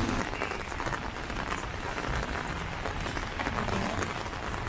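Steady rain falling on wet pavement, an even hiss of drops.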